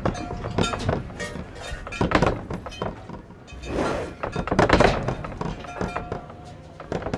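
A quick series of knocks and thuds, with a rushing noise swelling up just past the middle.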